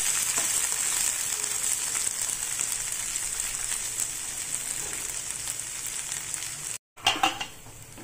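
Cut cluster beans frying in hot oil in a pan: a steady high sizzle that slowly fades. The sound drops out for a moment about seven seconds in, then a few sharp clatters of a wooden spatula stirring the beans come over a quieter sizzle.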